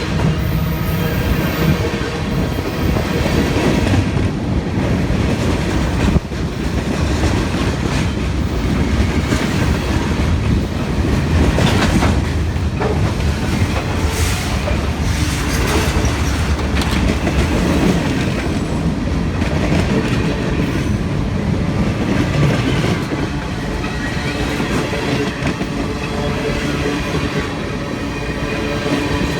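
Union Pacific manifest freight train rolling past close by: a steady heavy rumble with wheels clacking over the rail joints.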